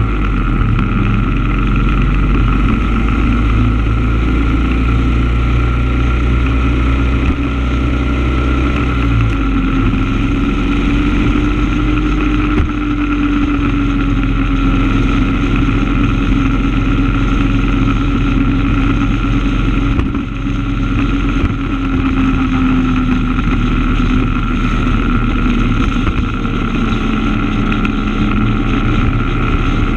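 A vehicle's engine running steadily while driving along a road, with road and wind noise; the engine note changes about nine seconds in.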